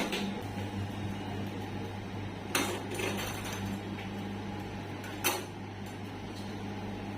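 Two sharp cracks during a chiropractic adjustment, about two and a half seconds apart, over a steady low hum.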